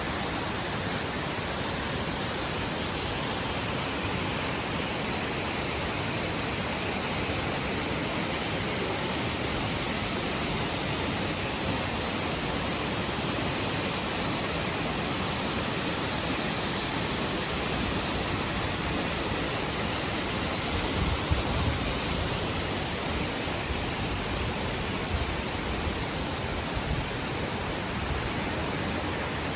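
Steady rush of a large waterfall's falling water, with a few brief low bumps about two-thirds of the way in.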